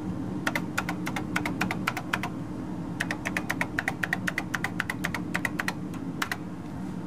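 Keys of a TRS-80 Model III keyboard being typed in quick runs of keystrokes with short pauses, over a steady low hum.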